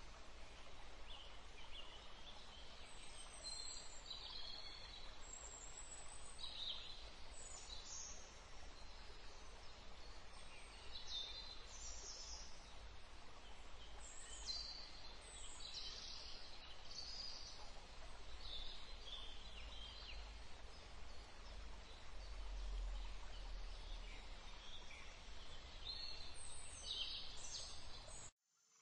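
Birds calling: many short, high chirps and squawks, one after another, over a low steady rumble of background noise. The sound cuts off suddenly near the end.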